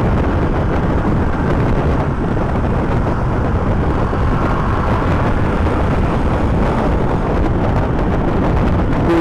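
Honda ADV150 scooter's engine running steadily at cruising speed, mixed with wind rushing over the microphone and road noise, heard as a steady low rumble.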